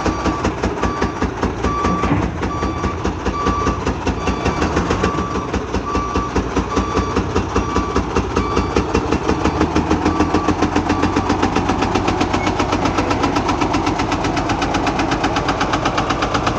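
Truck engine running with a heavy, rhythmic knock, the clatter of a badly damaged engine. A repeating beep sounds over it and stops about two-thirds of the way through.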